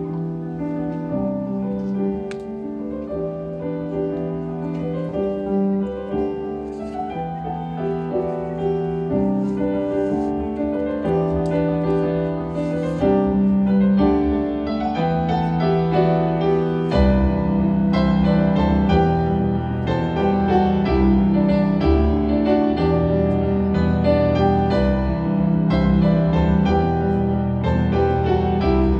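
Grand piano played solo, with sustained chords under a melody; past the middle it grows louder as deep bass notes come in.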